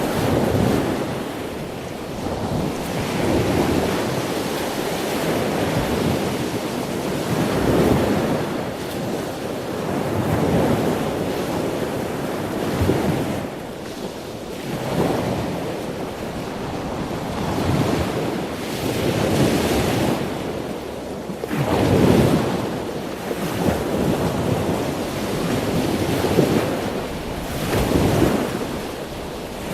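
Ocean surf: waves breaking and washing in. It swells and ebbs every two to three seconds.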